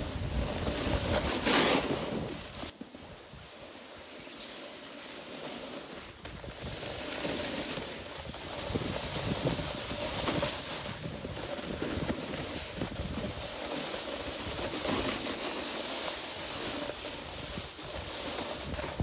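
Wind rushing over a phone microphone while riding downhill, mixed with the hiss and scrape of snowboard edges carving through groomed snow, swelling and fading with the turns.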